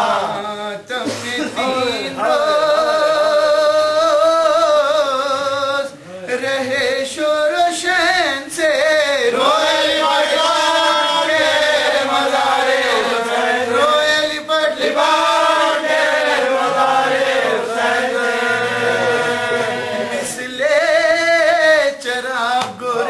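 A man chanting an Urdu mourning elegy in long, drawn-out melodic lines, his voice wavering on held notes, with short breaks between phrases.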